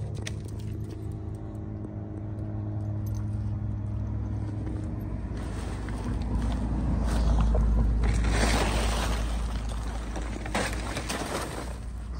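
A steady low mechanical hum, like a motor running. A heavier low rumble with rustling swells for a few seconds midway.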